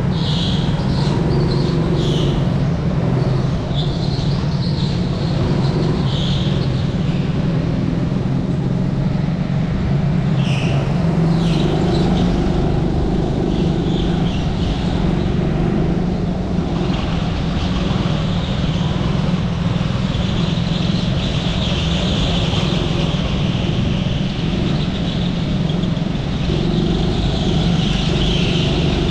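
Indoor racing kart at race pace, heard from onboard: a steady running drone with high squeals that come and go, loudest near the end.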